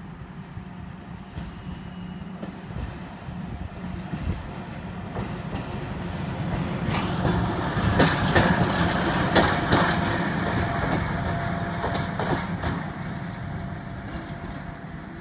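ŽSR class 754 "Brejlovec" diesel locomotive passing close by. Its engine drone grows louder and peaks about halfway through as the locomotive goes past, with wheels clicking over the rail joints, then fades as it pulls away.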